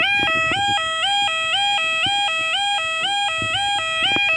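Level crossing yodel alarm: an electronic two-tone warble stepping between a lower and a higher pitch several times a second, warning road users that the barriers are coming down.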